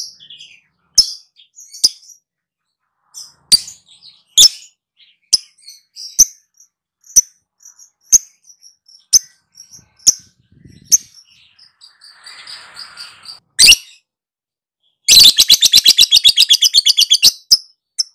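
Lovebird calling with sharp, high chirps at irregular intervals. About fifteen seconds in it breaks into a rapid chattering trill, the 'ngekek', of roughly nine notes a second lasting over two seconds.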